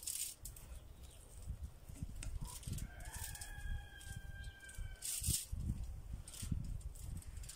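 A rooster crowing once, a single long call of about two seconds starting about three seconds in. Around it, soft knocks and brief rustles of hands working a fish fillet on a cutting board wrapped in cling film.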